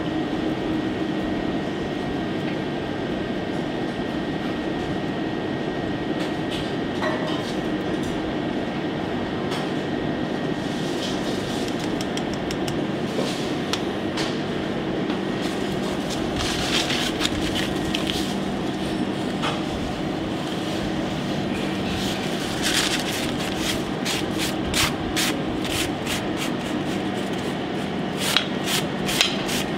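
Steady hum of kitchen ventilation. From about a third of the way in, scattered light clicks and scrapes of utensils and small dishes are heard as a plate is garnished, most frequent near the end.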